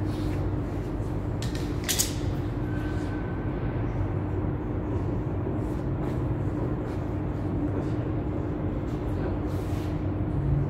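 Steady low mechanical rumble with a constant hum, and a sharp click about two seconds in, with a few fainter knocks.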